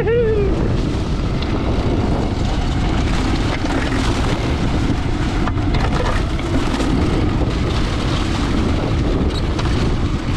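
Outrider Coyote electric four-wheel-drive ATV driving off-road, a steady rumble of tyres and chassis over rough ground mixed with wind noise on the microphone.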